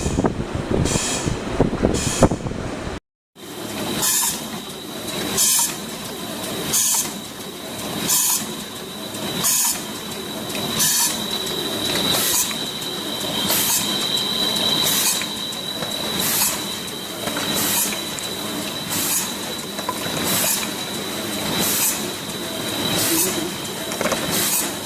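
Automatic soft-tube screen printing machine running through its cycle. A short hissing burst repeats about every second and a half over a steady high whine. The sound drops out briefly about three seconds in, then resumes with the slower rhythm.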